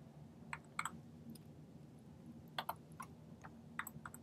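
Faint, irregular clicks of computer keys and buttons being pressed, about a dozen, some in quick pairs, over a faint steady low hum.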